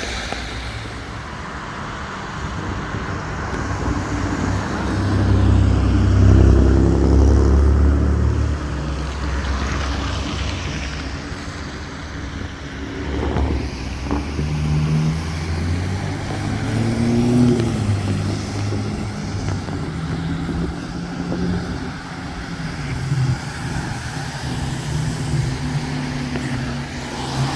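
Street traffic: cars passing one after another, their engines rising and fading, the loudest going by about six to eight seconds in.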